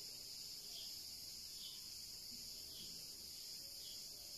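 Faint insects chirping in the background: a steady high-pitched trill with a soft chirp about once a second.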